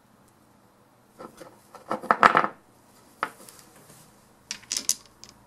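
Small metal parts of a torque wrench's ratchet mechanism clinking and rattling as they are handled. There is a flurry of clicks about two seconds in, a single knock, and a second short clatter near the end.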